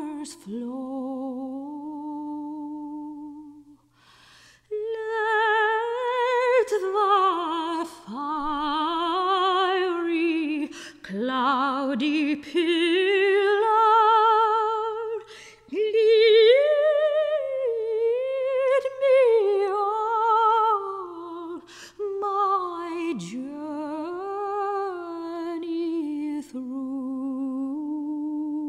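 Soprano singing long, held phrases with a wide vibrato, with a short break about four seconds in.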